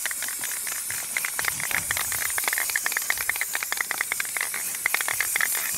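Aerosol spray can of gloss clear varnish spraying a steady hiss with a fast rattle running through it, as a clear protective coat goes onto a polished headlight lens.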